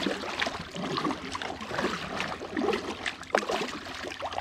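Kayak paddle dipping into the water, with irregular small splashes and water trickling and dripping off the blade.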